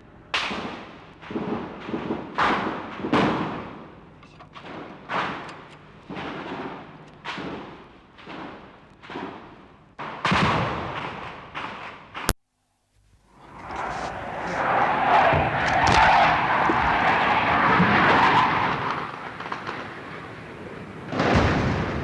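Street riot sound effect: a quick series of sharp bangs, each with a ringing decay, for about ten seconds. Then a click and a moment of dead silence, after which a loud crowd roar of shouting swells up and fades. Another bang comes near the end.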